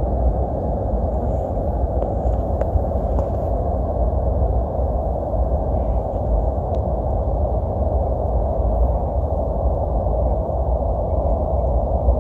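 Wind buffeting the microphone: a loud, unbroken rumble with a hiss, gusting a little, with a couple of faint ticks.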